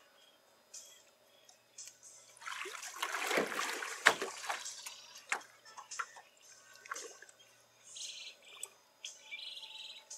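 Water splashing for about three seconds, with a sharp slap about four seconds in, as a caught fish is handled and let go in shallow lake water. Short bird chirps come before and after it.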